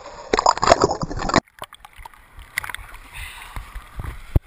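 Seawater sloshing and splashing against an action camera held at the surface, loudest in the first second or so. It drops off suddenly, then continues as a quieter, muffled, crackly wash with a few clicks and a sharp thump near the end as waves wash over the camera.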